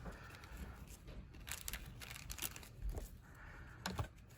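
Faint handling noises: a few light clicks and rustles as small door-lock parts are picked out of a kit.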